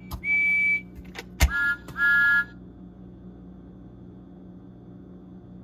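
Electronic whistle sounds from motorized Percy and Thomas toy engines, played through their small built-in speakers. A single high steady toot sounds twice, then a sharp click, then a lower two-note toot sounds twice.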